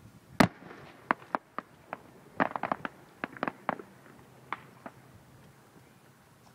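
Aerial fireworks shells bursting: one loud sharp bang about half a second in, followed by a string of shorter, irregular pops and reports, bunched in quick clusters, that thin out over the last couple of seconds.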